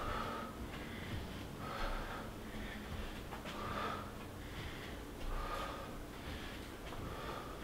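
A man breathing hard and rhythmically under exertion, with forceful breaths about once a second.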